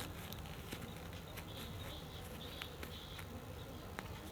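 Scissors cutting through cloth: scattered short rasping snips and small clicks of the blades.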